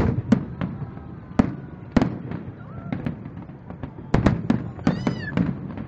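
Fireworks display: a string of sharp aerial bangs with echoing tails, spaced a second or so apart, then a quick cluster of several bangs about four seconds in.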